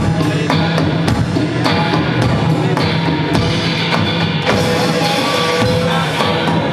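Band playing live and loud: a drum kit with steady hits over electric guitar and a held low note.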